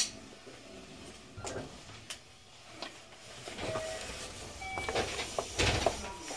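Inside a 223 series electric train at a station stop: scattered clicks and knocks, a few short beeps, and a heavier thud near the end, typical of the sliding doors working.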